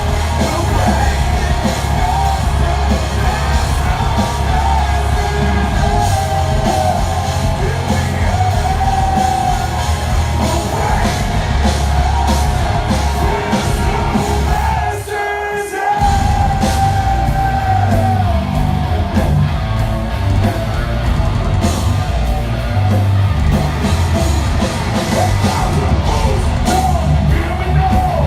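Heavy metal song with loud, strained singing over drums and distorted guitars. About halfway through, the bass and drums drop out for a moment, then the full band crashes back in.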